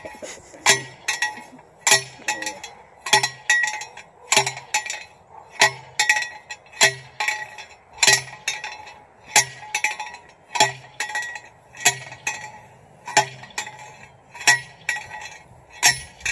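Long-handled metal slide-hammer rod being driven into the soil beside a newly planted tree: a sharp ringing metal clank about every second and a quarter, with lighter clinks between the strikes.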